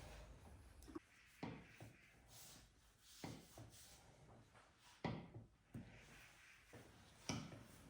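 A few faint, irregular knocks and short scrapes of a spokeshave blade and hand tools being handled at a woodworking bench during water-stone sharpening.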